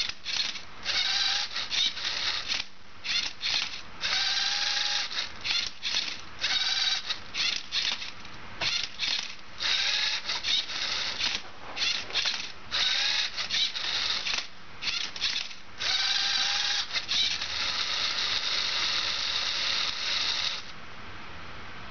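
LEGO Mindstorms robot's servo motors whirring in many short bursts, with plastic clicks and rattles, as the robot turns and flips a Rubik's cube during its solving moves. A longer whir comes near the end, then the motors stop and the cube is left solved.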